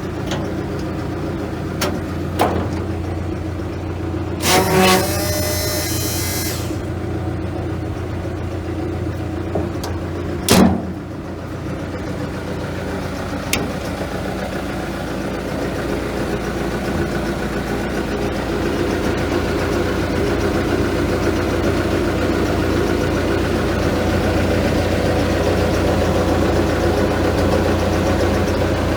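Diesel engine of a Hitachi ZX280LC-3 tracked excavator running steadily, growing somewhat louder in the second half. A short squeal with a hiss comes about four and a half seconds in, and a sharp knock about ten and a half seconds in.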